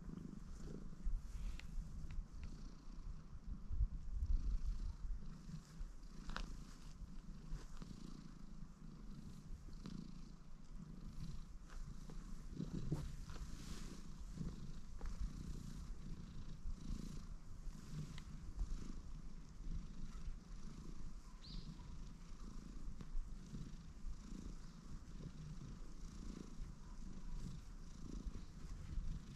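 Orange-and-white tabby cat purring steadily up close while being stroked, an even, repeating low purr.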